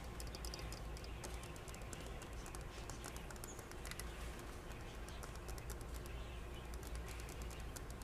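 Fast, irregular light clicking and scratching as a green-cheeked conure moves about its enclosure on wood-pellet bedding, over a steady low hum.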